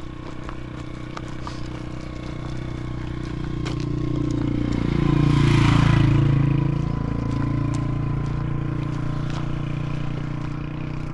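A motor vehicle's engine passing close by, growing louder to a peak about six seconds in and then fading, its pitch dropping as it goes past.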